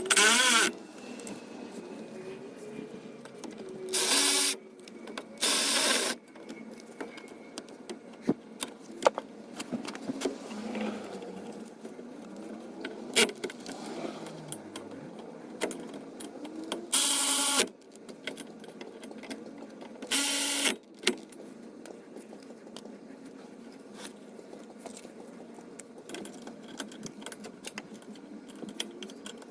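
A power wrench spinning bolts in five short bursts of about half a second to a second each, with small metallic clicks and clinks of tools and parts in between.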